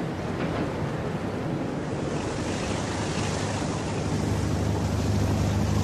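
Rushing water and wind, like a ship's hull pushing through the sea, with a low steady engine drone that grows louder in the second half.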